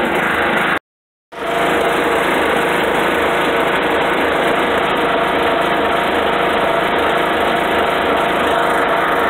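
Riding lawn mower engine running steadily, staying on with the seat safety switch bypassed and no one on the seat. The sound cuts out completely for about half a second about a second in.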